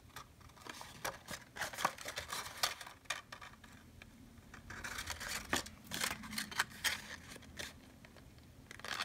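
Folded designer-series paper rustling in the hands as the sides of a small paper basket are brought together and pressed into place, in short scattered rustles and light taps.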